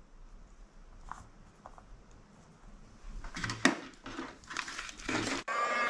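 Small parts and wires being handled on a work mat, then about five and a half seconds in a small heat gun switches on with a steady whine, used to shrink heat-shrink tubing over a drone motor's wires.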